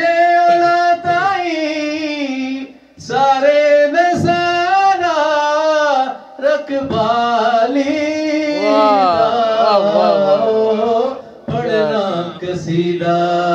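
A man singing a qasida, a devotional poem, solo into a microphone, in four long phrases of held, ornamented notes. A winding run comes near the middle, and short pauses for breath fall between the phrases.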